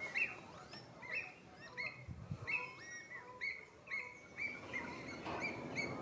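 Several wetland birds calling at once: many short whistled notes that rise and fall, overlapping in a steady chatter.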